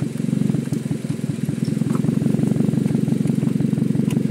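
Toyota Vios Limo's four-cylinder petrol engine idling steadily, heard with the bonnet open.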